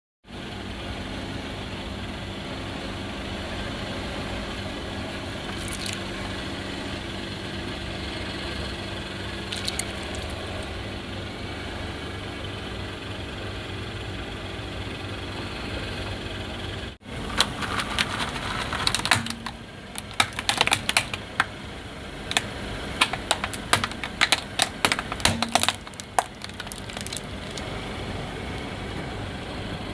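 Car engine idling steadily. After an abrupt break about halfway through, a rapid series of sharp cracks and crunches runs for about ten seconds as a car tyre rolls over and breaks hard plastic toys. The idling hum then continues.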